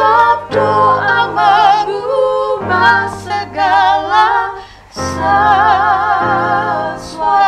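Two women singing a worship song in duet with vibrato, accompanied by an electronic keyboard holding sustained chords. The singing breaks off briefly a little before five seconds in, then resumes on a long held note.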